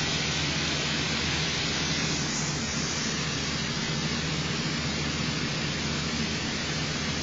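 A steady, even hiss with a low hum underneath, without breaks or distinct events.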